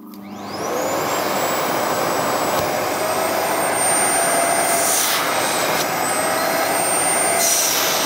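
Parkside PPWD 30 A1 workshop wet/dry vacuum switched on: its motor spins up with a rising whine into a steady, loud suction rush, with the nozzle held shut so the whole system is under full vacuum. The whine dips briefly about five seconds in and starts to fall away at the very end as the motor is switched off.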